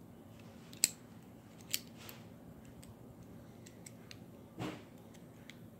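Small plastic clicks from a Bakugan toy ball being worked in the hands as its hinged panels are folded: a sharp click about a second in, two more just before and after two seconds, and a brief rustle of handling a little after four and a half seconds.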